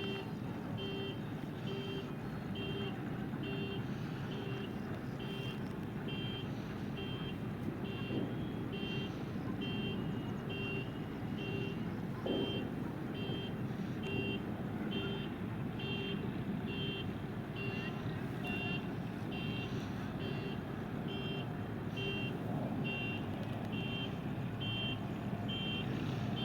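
Electronic beeper sounding a short, high beep about every 0.6 seconds, over a steady low rumble.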